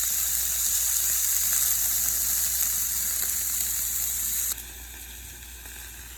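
Food sizzling in hot oil in a frying pan: a steady high hiss that drops to a quieter sizzle about four and a half seconds in.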